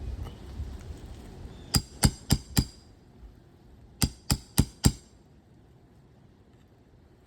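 Two quick runs of four sharp metallic taps, the second run about a second and a half after the first, over light wind noise.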